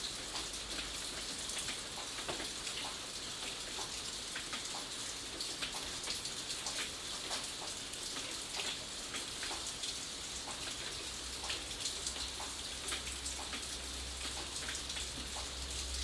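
Steady rain with many separate drops ticking on a surface, and a low rumble that comes up near the end.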